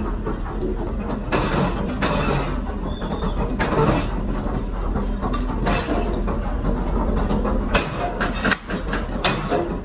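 Workshop machinery running with a steady low hum, noisy rushes and, in the second half, a series of sharp knocks and clanks.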